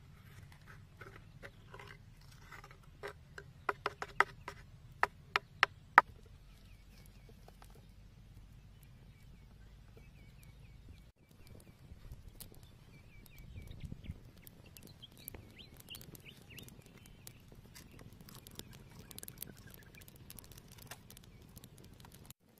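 A bamboo stick scrapes and taps inside a split green bamboo tube while beaten eggs are being mixed, with a run of sharp knocks about four to six seconds in. Then a small wood fire under the bamboo tube crackles with scattered pops.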